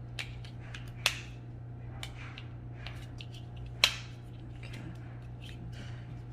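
Small plastic clicks and handling noises from medication vials, syringe and packaging being handled, with two sharp, loud clicks, about a second in and just before four seconds. A steady low hum runs underneath.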